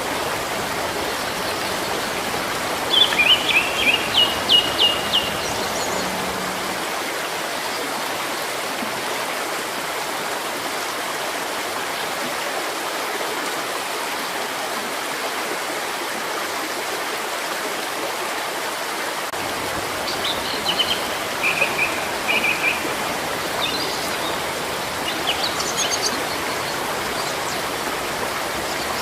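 Steady rush of running water, like a stream, with small birds chirping over it: a quick run of chirps a few seconds in, and more scattered chirps in the last third.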